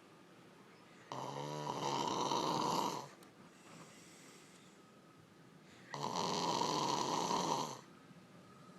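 A woman snoring: two long snores about five seconds apart, each lasting about two seconds, the first opening with a rattling flutter.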